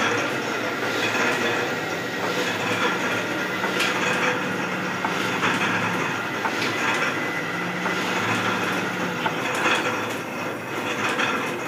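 Sheet-fed offset printing press running while it prints non-woven carry bags: a steady mechanical clatter of rollers and gripper bars, with repeated sharp clicks over a low hum.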